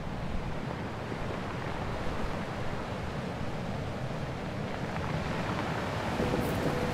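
Wind buffeting the microphone with a steady low rumble over small waves lapping at the shore.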